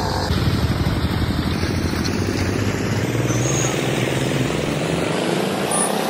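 Small engine on concrete paving equipment running steadily with a rapid low pulse; the low rumble thins out near the end.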